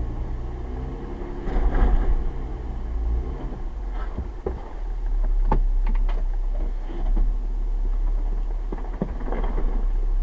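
Jeep Wrangler engine running at idle with a steady low hum, with a few sharp clicks and knocks in the middle and near the end.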